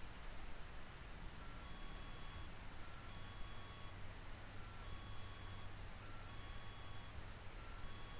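Faint steady hiss and low hum, with thin electronic whining tones that switch on and off and shift slightly in pitch every second or so: circuit noise picked up by the trail camera's own microphone.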